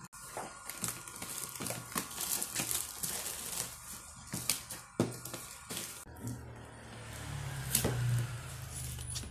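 Thin clear plastic bag crinkling and rustling as it is handled and pulled off a boxed set of plastic food containers, with many small irregular crackles and clicks.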